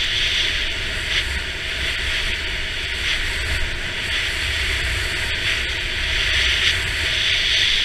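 Skis sliding downhill over packed snow: a steady hiss that swells and eases every few seconds, with wind rumbling on the microphone.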